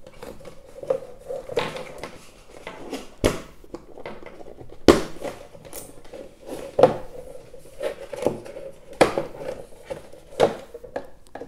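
Wireless neckband earphones and their cable being pulled out of a moulded box insert by hand. It is a run of irregular scrapes, rustles and small clicks and knocks as the earbuds and cable catch and tap against the packaging.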